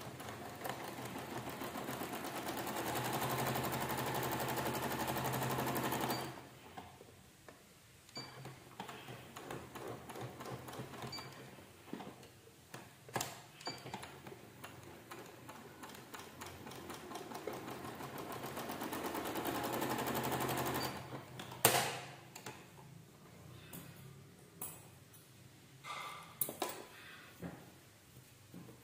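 Electric domestic sewing machine stitching a seam in two runs, stopping about six seconds in and again about twenty-one seconds in. Between and after the runs there are quieter clicks as the fabric is handled, with one sharp click just after the second stop.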